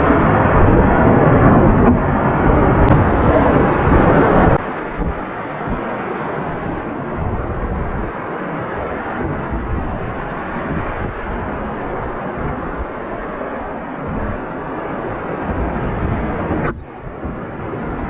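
Whitewater of a rain-fed mountain creek rushing over granite ledges, a steady noise. It drops in level suddenly about four and a half seconds in and dips briefly near the end.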